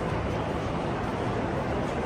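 Busy city street ambience: a steady wash of crowd chatter and passing traffic with a low hum underneath.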